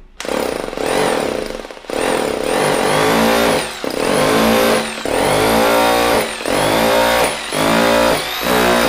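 Bosch 2-22E 100 V rotary hammer drill running in hammer-drill (concrete) mode, its trigger pulled in about seven short bursts, the motor whine climbing as it spins up and dropping each time it is released.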